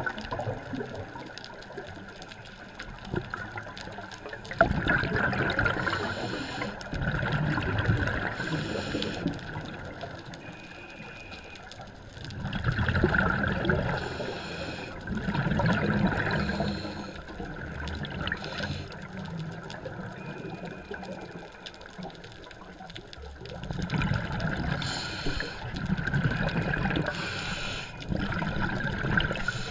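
Scuba diver's regulator breathing underwater: gurgling exhaled bubbles that swell in three long spells, with quieter stretches and short hisses between.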